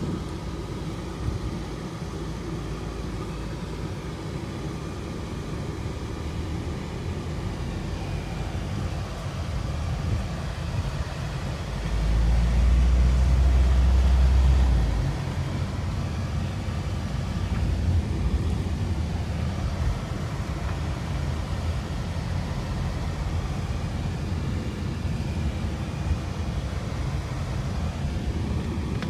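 Road noise inside a car driving slowly: a steady low rumble of engine and tyres. It swells into a much louder low rumble for about three seconds near the middle.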